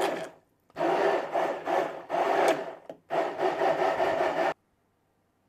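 Braun immersion blender running in a plastic jug, chopping cooked onion and meat juices into a sauce. It runs in three bursts with brief pauses between them and cuts off suddenly about four and a half seconds in.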